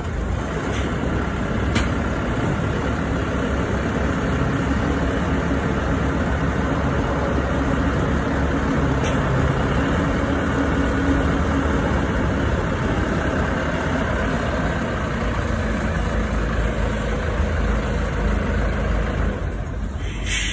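Tín Phát TP930 wheel loader's diesel engine running steadily.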